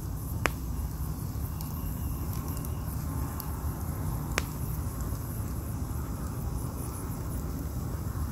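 Split logs burning in a fire pit: a steady rush of flames with two sharp pops, one about half a second in and one just past four seconds.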